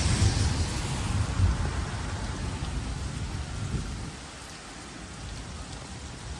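Thunder rumbling and dying away about four seconds in, over steady rain.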